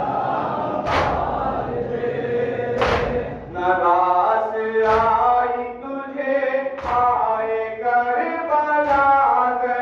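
Group of men chanting a nauha, a Shia Muharram lament, in unison, with a sharp collective chest-beat (matam) landing about every two seconds. For the first few seconds the voices are a mixed crowd, and they settle into one clear unison line about three and a half seconds in.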